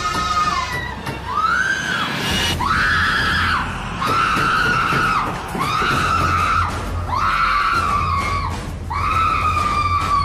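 A woman screaming in terror over and over: about seven long, high-pitched screams of roughly a second each, one after another with short gaps.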